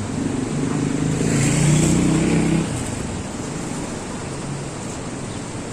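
Steady rush of falling water, with a louder low rumble over it that stops abruptly about two and a half seconds in.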